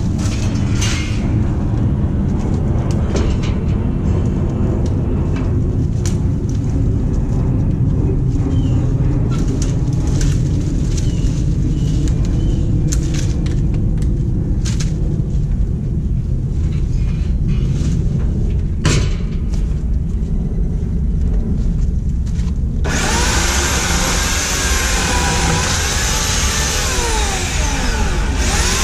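Cut branches and brush crackling and rustling as they are dragged, over a steady low rumble. About 23 seconds in, a Homelite 16-inch corded electric chainsaw starts up, its motor whine rising and falling as it cuts into the bush stems.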